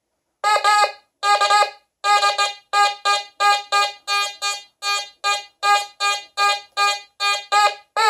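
Nokta Fors Core metal detector giving its target tone again and again as a V nickel is passed over the search coil. The beeps start about half a second in and come about two to three a second. The tone signals a non-ferrous target, which the detector reads at 55 to 56.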